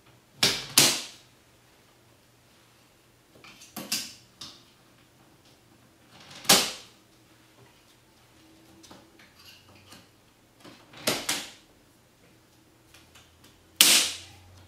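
CHAOS Tower plastic tube and crossbeam connector pieces snapping and clicking into place, in short clusters of sharp clicks a few seconds apart.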